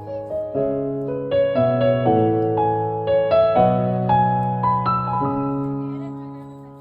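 Background music: a slow keyboard piece with piano-like melody notes over held chords, fading down near the end.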